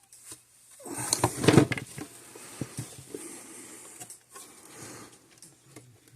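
Handling noise as a load bar cable is plugged into a Gallagher W210 scale indicator: scattered clicks and knocks, loudest in a cluster of rattling and rustling about a second in.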